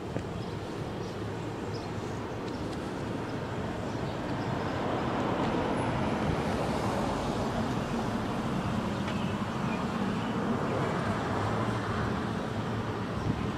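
Street traffic: a car's engine and tyres growing louder as it approaches and drives past close by.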